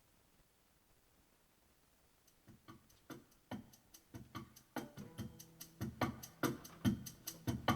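Near silence, then about two seconds in music fades in: a ticking beat with low plucked notes, growing steadily louder.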